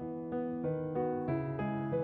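Background piano music: single notes played in an even rhythm, about three a second.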